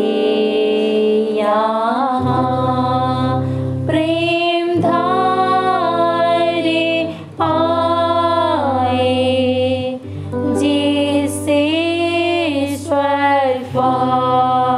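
A woman singing a Hindi Christian hymn in long held and sliding notes, over steady instrumental accompaniment, with short breaks between phrases.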